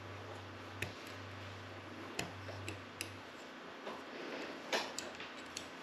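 Scattered small clicks and scrapes of a steel pick working in a brake caliper's piston bore, prying out the O-ring seals. A faint low hum runs underneath and stops about three seconds in.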